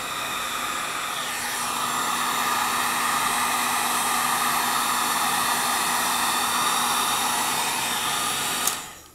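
Electric heat gun blowing hot air, a steady rushing noise with a low hum under it. It grows louder a second or so in, then stops with a click near the end.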